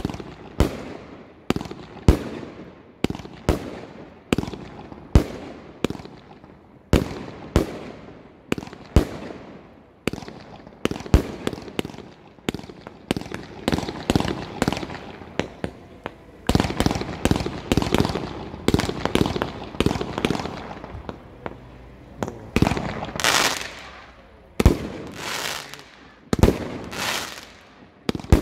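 Aerial fireworks going off in a steady series of sharp bangs, about one or two a second, each with an echoing tail. Past the middle the bangs come thicker with crackling between them, and near the end there are longer, louder crackling bursts.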